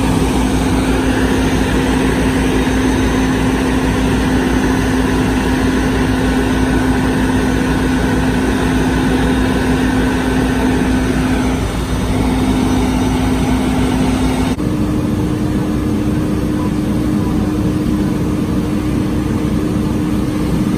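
A fire truck's engine runs hard to drive its pump, feeding a water stream from the aerial ladder. It gives a loud, steady drone over a heavy rushing noise. About two-thirds of the way through the sound changes suddenly, and the drone then holds at a slightly higher pitch.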